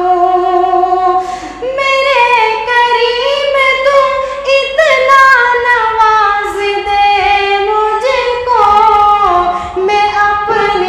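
Unaccompanied solo male voice singing an Urdu naat, drawing one syllable out into a long ornamented melisma, the pitch sliding and stepping between held notes.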